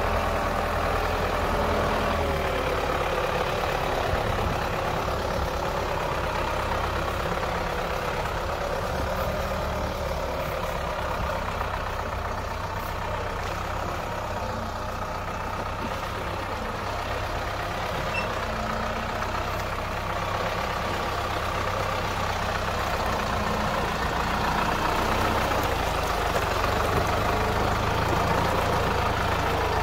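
Tractor diesel engine running steadily, its pitch dipping slightly about two seconds in.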